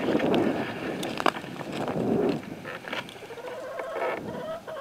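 Rustling and crunching on dry leaves and ice for the first two seconds or so. Then chickens, a rooster and hen, cluck quietly.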